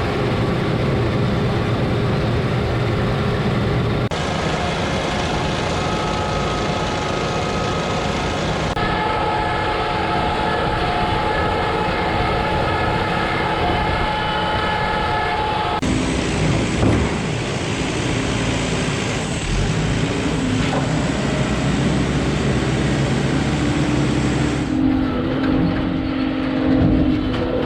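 Heavy farm machinery running with a steady engine drone. Its sound changes abruptly several times, as from one clip to the next.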